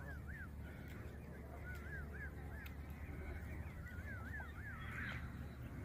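Canada geese calling in three short runs of quick rising-and-falling honks, two to four calls each, over a steady low rumble.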